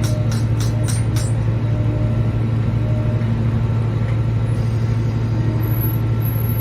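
Steady low engine drone, with a fast ticking of about four a second that stops about a second in.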